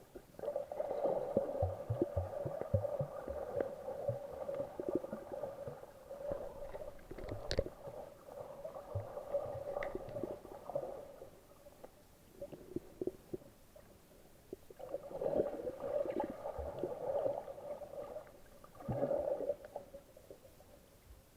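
Muffled underwater sound from snorkelling, heard through a waterproofed camera: water sloshing and gurgling with many small clicks and a steady hum. It comes in stretches, with a long one at the start and shorter ones later, broken by quieter gaps.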